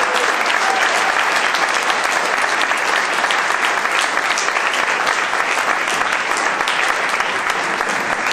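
Audience applauding at the end of a song: many hands clapping in a dense, steady wash.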